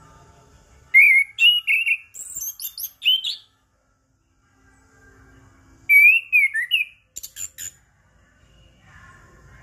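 Chestnut-capped thrush (anis kembang) singing: two short bursts of quick, varied whistled and chirping phrases, the first about a second in and the second around six seconds in, with a pause between them.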